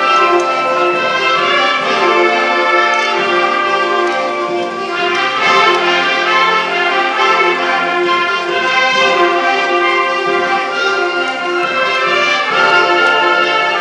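High school concert band playing, brass to the fore, in sustained chords.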